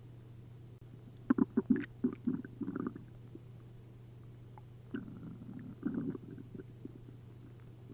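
Human stomach and intestines gurgling with liquid bubbling, in two clusters of irregular gurgles, the first about a second in and the second around five seconds in, over a steady low hum. The gut is upset and full of liquid after a liter each of milk and prune juice.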